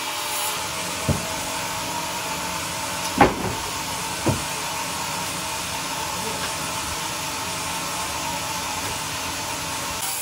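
Band sawmill machinery running with a steady hiss, broken by three sharp knocks: about a second in, about three seconds in (the loudest), and just after four seconds.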